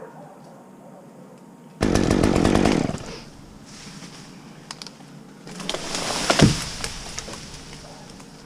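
Chainsaw revving in two short bursts: one starts abruptly about two seconds in and lasts about a second, and a second builds a few seconds later, peaking sharply before dying away.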